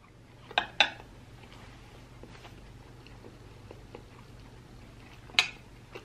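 Metal fork clinking against a ceramic plate while scooping food: two quick clinks about a second in and one more near the end.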